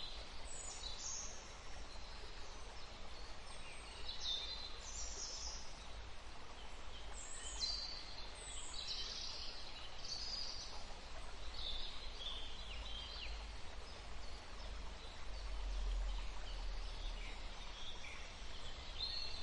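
Small forest stream flowing steadily, with birds singing and calling in short phrases every second or two.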